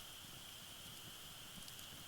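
Faint wood fire crackling in a UNIFLAME firewood grill, with a small pop at the start and a couple of faint ones near the end, over a steady high-pitched tone.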